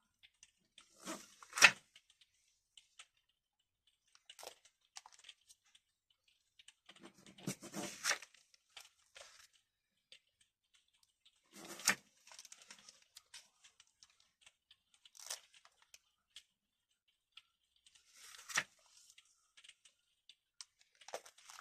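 Pages of a plastic-sleeved display book being turned by hand: bursts of crinkling plastic rustle, each ending in a sharp flap, several times over with quiet gaps between.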